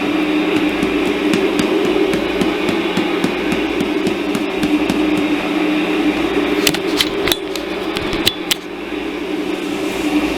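Steady mechanical drone with a constant low hum, broken by a quick cluster of sharp clicks about two-thirds of the way through.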